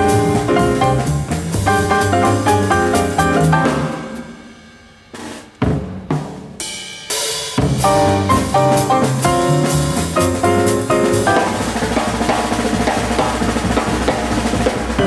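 Live jazz on drum kit and piano: piano chords over busy drumming. About four seconds in the music drops away briefly, broken by a few sharp drum hits, before drums and piano come back in full.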